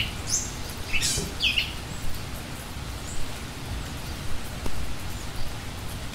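Small birds chirping a few short calls in the first second and a half, over a steady low outdoor rumble.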